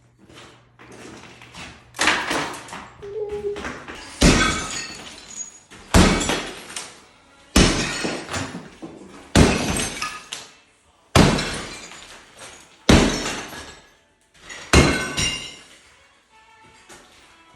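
Ceramic floor tile being broken up with a sledgehammer: eight heavy blows, about one every two seconds, each followed by clattering, breaking tile.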